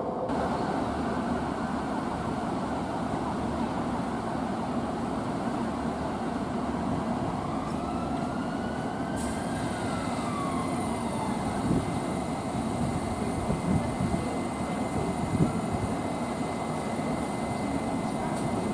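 London Overground Class 378 electric train rolling slowly over the points into the platform: a steady rumble with a few sharp knocks from the wheels on the crossings in the second half. A single whine rises and then falls in pitch about halfway through.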